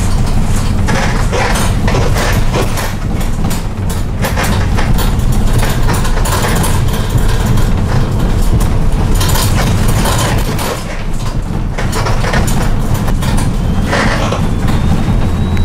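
Cabin noise of a Dietrich City 21 minibus on a Fiat Ducato base driving fast over a rough road: steady engine and road rumble with continual creaking and rattling of the body and interior fittings.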